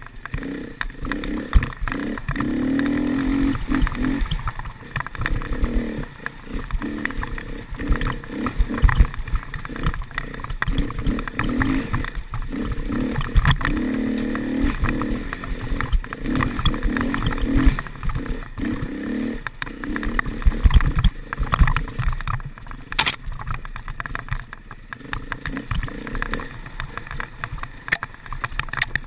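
Enduro dirt bike's engine revving up and down as it is ridden hard over a rough forest trail, with frequent knocks and rattles from the bike hitting bumps and stones, and one sharp bang about three-quarters through.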